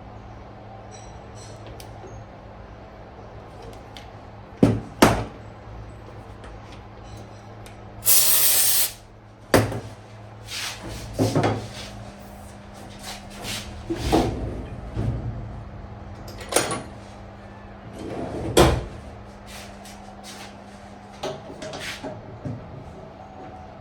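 Scattered knocks and clunks of tools and parts being handled, with one hiss lasting about a second near the middle, over a steady low hum.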